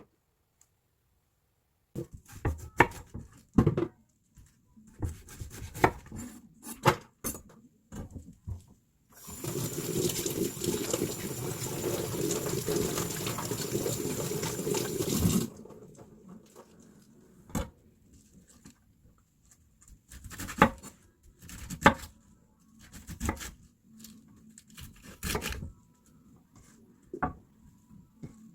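Kitchen sounds: dishes and utensils knocking and clinking, then a tap running steadily for about six seconds and stopping abruptly, followed by more scattered knocks.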